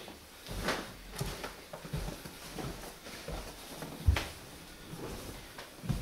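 Footsteps going down stairs: a run of dull thumps about one every two-thirds of a second, the heaviest about four seconds in.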